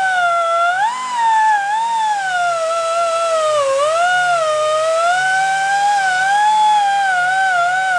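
Die grinder spinning a Roloc Scotch-Brite disc against an aluminum engine case, scrubbing off old gasket material: a loud, high whine whose pitch keeps sagging and recovering as the disc is pressed on and eased off.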